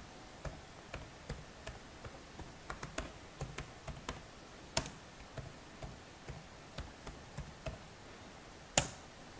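Computer keyboard being typed on: separate key clicks, about three a second, with one louder keystroke near the end.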